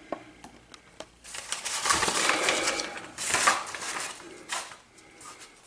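Handling noise: scattered light clicks and scratchy rustling, as of small parts or wires being moved about by hand.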